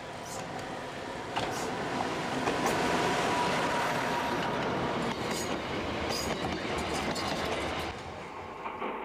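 A tram railcar and its carriages passing close by on rails, wheels clicking over the rail joints. The sound swells to a peak a few seconds in and eases off near the end, with a faint steady whine over the rumble for a while.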